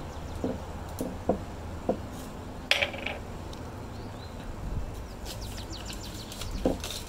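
Scissors and paper being handled at the start of cutting a paper tail: a few light clicks scattered through, with a brief paper rustle about three seconds in, over a steady low hum.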